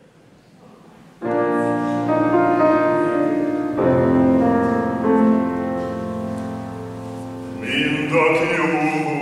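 Grand piano playing a song's introduction in sustained chords, starting about a second in. Near the end a male opera singer comes in singing over the piano.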